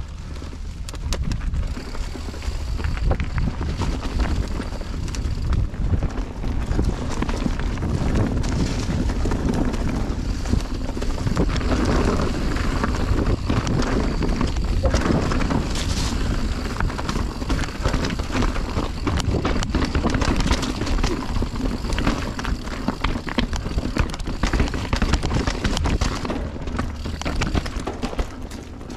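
Mountain bike riding along a dirt trail: tyres rolling over dirt and roots, the bike rattling and clattering over bumps, with wind buffeting the microphone.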